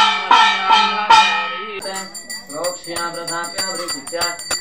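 A puja hand bell rung repeatedly, about two to three ringing strikes a second over a low steady hum, as the lamp is waved before the deity. It stops abruptly about two seconds in, giving way to quieter jingling and voices.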